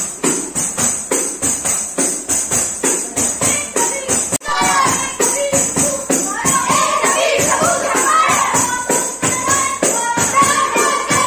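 Jingling hand percussion keeping a steady quick beat, about four strokes a second. From about four and a half seconds in, a group of children sings together over it.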